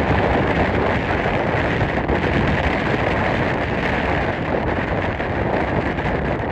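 Wind blowing hard across the microphone: a loud, steady rushing noise with no let-up.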